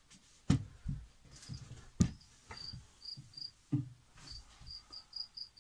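A cricket chirping in short pulses at one high pitch, starting about a second and a half in and coming more closely spaced toward the end. A few sharp thumps from the handheld camera being moved break in, and they are the loudest sounds.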